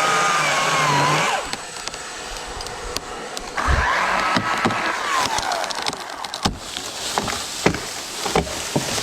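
Chainsaw cutting wood, its pitch sagging under load, stopping about a second and a half in, then a second burst of sawing around the middle. In the last few seconds, a scatter of sharp knocks and cracks.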